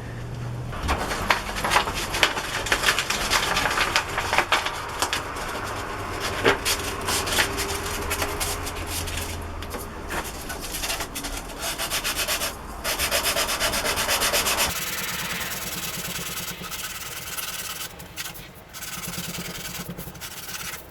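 Rolled 220-grit sandpaper rubbed by hand over small wooden intarsia pieces in quick, repeated scratching strokes, smoothing the wood. The scratching changes in tone about fifteen seconds in.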